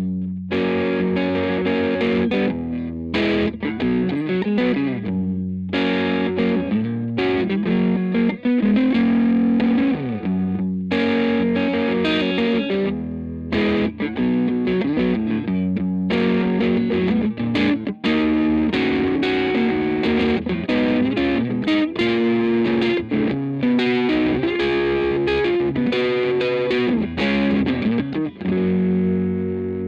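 Fender Custom Shop 1960 Stratocaster electric guitar played through an amp: chords and lead runs with several string bends, ending on a chord left to ring out.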